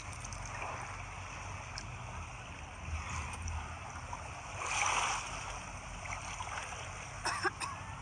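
Shallow seawater sloshing and splashing around wading legs, with a louder splash about five seconds in and a few brief sharp sounds near the end.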